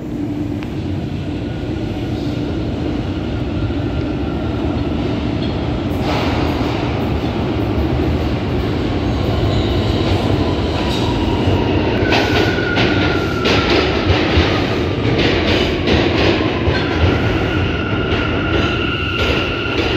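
New York City Subway R179 train pulling into an underground station: a rumble that grows louder as it approaches. Then wheels clack over rail joints and a whine falls in pitch as the train slows, with steady high tones once it is alongside the platform.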